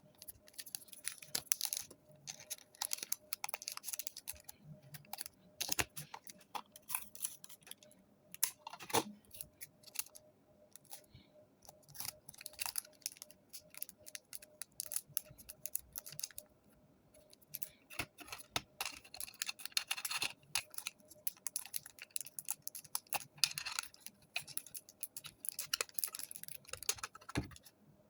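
Irregular sharp clicks, taps and short scratchy rubbing from a Zippo lighter being handled and worked on by hand, over a faint steady hum.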